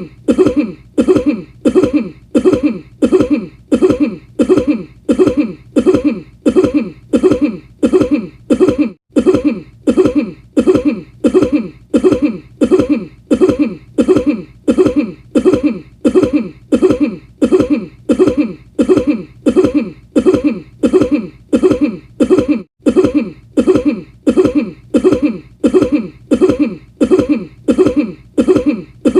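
The same cough repeated over and over in an unbroken loop, about three coughs every two seconds.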